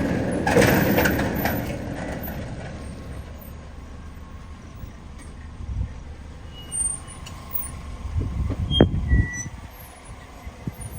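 Car engine and road noise dying down as the car slows and pulls up. There is a short hiss in the first second, and a few dull thuds come later.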